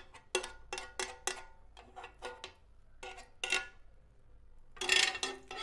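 Metal spoon clinking and scraping on a nonstick double grill pan while spreading oil in it: about ten short taps, each with a faint ring, then a louder, longer clatter near the end.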